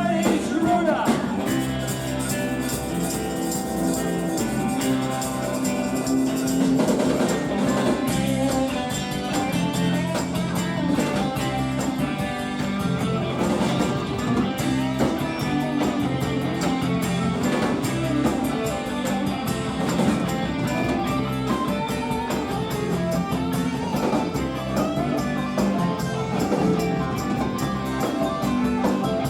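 A live rock band playing, led by guitar over bass and drums, with a steady beat throughout.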